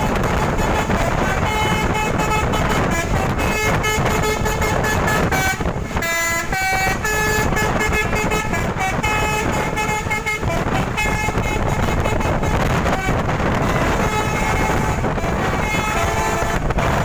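A bus's basuri 'telolet' multi-tone horn playing a quick string of short melodic notes, over a loud, steady rush of wind and road noise.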